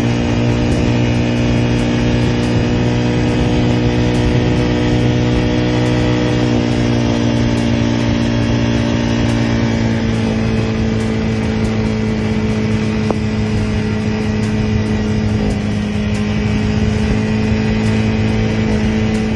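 Quad bike (ATV) engine running steadily at cruising speed, a constant drone whose pitch shifts slightly a couple of times.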